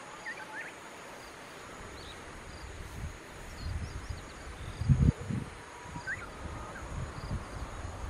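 Uneven low rumbles of wind buffeting the microphone, strongest about five seconds in, over a faint outdoor background with a few short bird chirps near the start and again about six seconds in.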